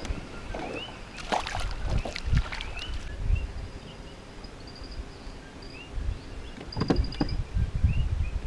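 Knocks and clatter of gear and footsteps in a small metal fishing boat, in two clusters about a second in and near the end, with low thumps on the hull. Birds call throughout: short rising chirps repeated every second or so and a rapid high trill.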